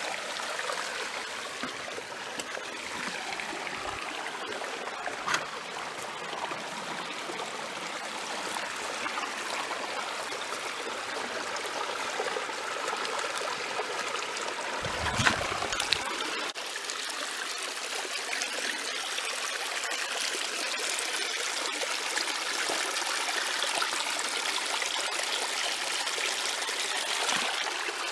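Small shallow creek flowing steadily over rocks and gravel, a constant trickle of water. A brief knock comes about five seconds in, and a louder thump about fifteen seconds in.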